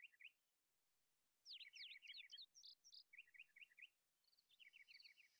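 Very faint birds chirping in quick runs of short falling notes; from about four seconds in, a cricket's chirp joins, repeating about twice a second.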